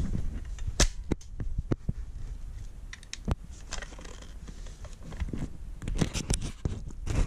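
Scattered clicks and knocks of an airsoft M4 rifle's parts being handled and worked apart by hand, with a cluster of them near the end, over a low rumbling handling noise.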